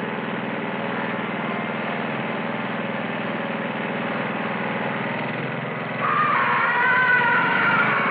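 Small petrol lawn mower engine running steadily. About six seconds in, a louder wavering high-pitched sound comes in over it.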